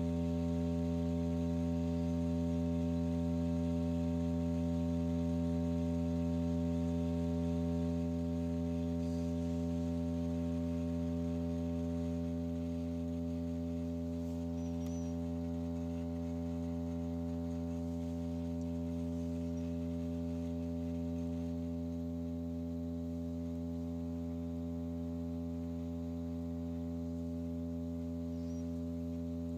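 A steady low, hum-like tone with many overtones, the kind of sustained drive tone used to set a cymatics medium vibrating. It holds one pitch and eases slightly quieter as it goes.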